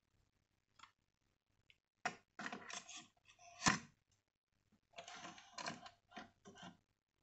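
Clicking and plastic rattling as a tape cassette is loaded into a Victor TD-V731 cassette deck, in two short spells, with one sharp, loudest click between them.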